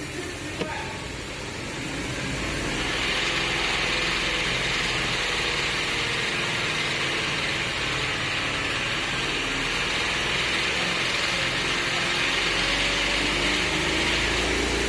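BMW N63B44 4.4-litre twin-turbo V8 engine running steadily, with a louder hiss joining about two and a half seconds in.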